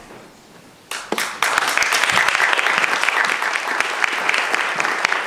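Audience applauding: a few claps about a second in, swelling quickly into steady applause from many people.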